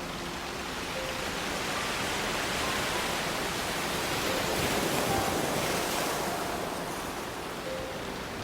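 Ocean surf washing onto a pebble beach, a steady rush that swells to a peak about halfway through and eases off again. A few faint, sparse notes of soft background music sound under it.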